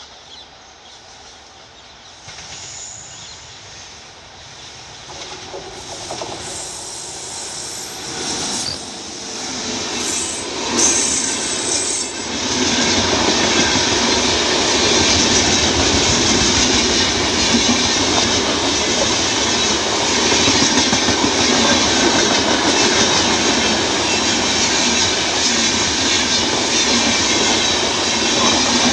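Rajdhani Express hauled by a WAP-7 electric locomotive, approaching and passing at speed. The train noise builds for about twelve seconds as it nears, then becomes a steady loud rush of wheels on rail with clickety-clack as the coaches go by.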